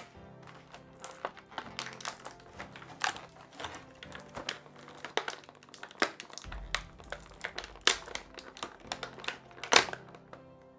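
Plastic toy packaging crinkling, with irregular sharp clicks and crackles as toy parts are handled and pulled free; the loudest crackle comes near the end.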